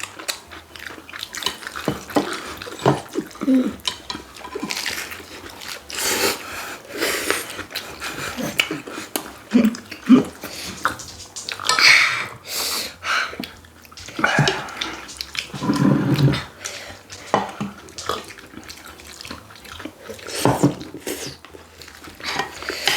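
People eating tteokbokki close to the microphone: wet chewing and slurping, with many short clicks of utensils and dishes.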